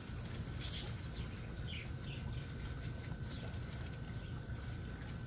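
Quiet backyard ambience with a steady low rumble and a few faint, short high chirps from birds.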